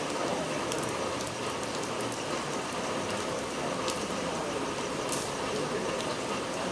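Steady rain falling, with scattered sharp ticks of individual drops.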